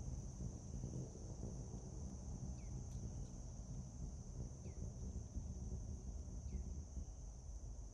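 Rainforest ambience: a steady high insect drone over a low rumble, with a short falling chirp three times, about two seconds apart.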